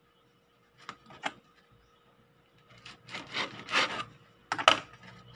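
Serrated bread knife sawing through the crunchy crust of a sourdough loaf in a few rasping strokes. Two light clicks come about a second in, and two sharp knocks against the wooden cutting board come near the end.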